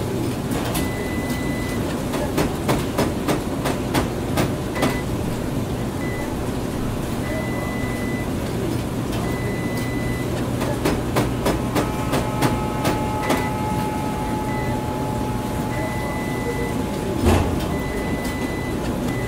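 Experimental sound-design soundscape: a steady noisy rumble over a low hum, with scattered clicks and knocks and broken high beeps of uneven length. About two-thirds of the way in, a held pair of tones joins, and a louder knock comes near the end.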